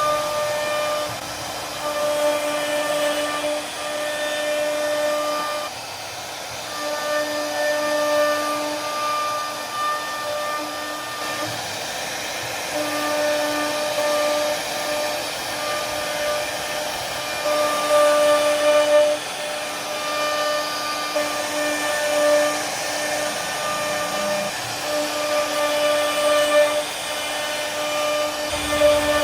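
CNC router spindle running at a steady high whine while the bit carves into wood, over a continuous hiss of cutting; the whine swells and fades every few seconds as the cut goes on.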